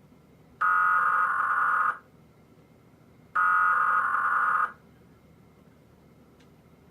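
Emergency Alert System SAME header data bursts: two buzzy digital bursts, each a little over a second long, with about a second and a half between them, the coded header that opens an EAS test alert.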